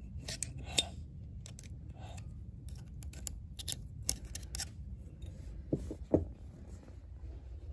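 Small screwdriver tip clicking and scraping on the steel parts of a Lokka automatic locker inside a differential carrier: a scatter of sharp metal ticks, then two duller knocks about six seconds in.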